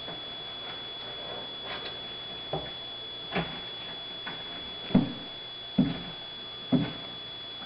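Male tortoise wheezing while mating: a run of short grunting wheezes, a little under a second apart, that grow louder from about two-thirds of the way in.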